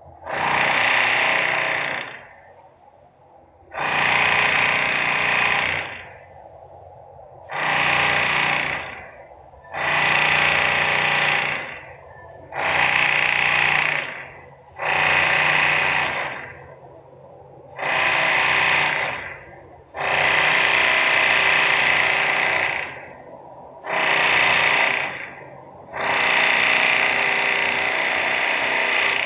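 Loud industrial machinery noise from a plant, coming in repeated bursts of one to three seconds with short quieter pauses between them, about ten times over.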